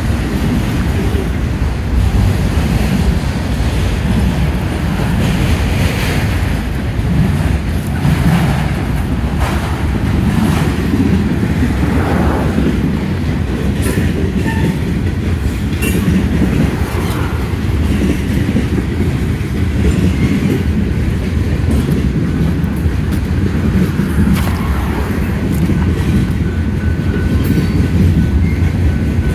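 Norfolk Southern freight train's cars rolling past: a steady, loud rumble of steel wheels on rail, with scattered clanks.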